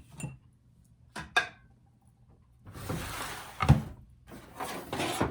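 Kitchen things being moved aside on a counter: a few light knocks, then a rustling, sliding noise with one solid thud about two thirds of the way in, and more rustling near the end.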